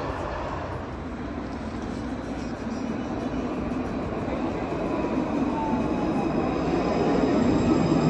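Alstom Citadis tram running on its rails: a steady rumble with a faint gliding whine, growing louder near the end.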